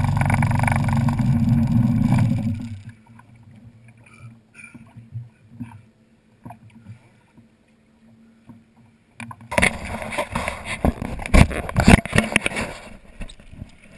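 Small boat's engine running steadily, then throttled back about three seconds in to a faint idle, with small water sounds around the hull. Near the end, a few seconds of loud, irregular thumps and rustling.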